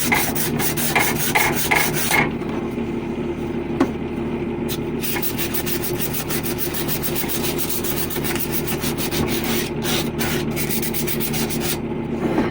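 Abrasive rubbing and scraping on a copper pipe, quick strokes for the first two seconds, then lighter and duller. A steady low mechanical hum runs underneath.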